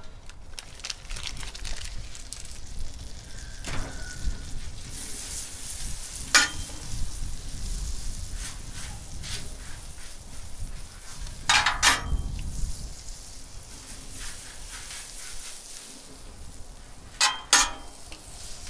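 Butter sizzling as a block of it is rubbed across the hot steel top of a Blackstone flat-top griddle, melting and foaming. A few sharp clicks break the steady sizzle, at about six, twelve and seventeen seconds in.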